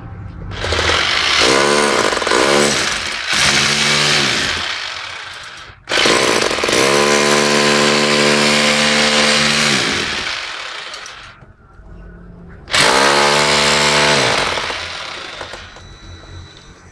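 Small electric jackhammer run in three bursts of several seconds each, the motor's pitch dropping as it winds down at the end of each burst.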